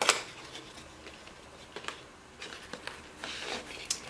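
Hands handling a cardboard product box and a printed card: one sharp knock at the start, then light rustling and a few soft taps.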